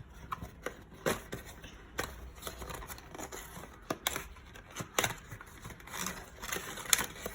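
Small cardboard accessory box being opened and its contents handled: scattered sharp clicks and taps over light rustling and scraping.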